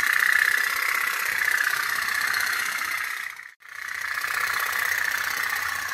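Toy pop-pop steamboat running, its candle-heated boiler giving a fast, steady tuk-tuk-tuk putter. The sound drops out for a moment about three and a half seconds in, then carries on.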